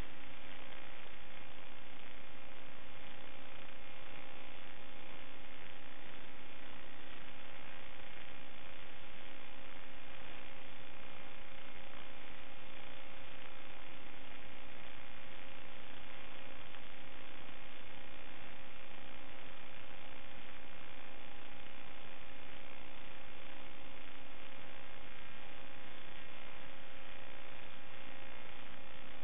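Steady electronic hum and hiss with several constant tones that never change, even as the quadcopter manoeuvres and crashes: noise on the audio channel of an analog FPV video link, recorded by the goggles' DVR.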